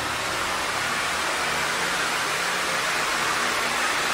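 Steady hiss of steam jetting from the square steam head of a Steamist EliteSteam 15 kW steam generator.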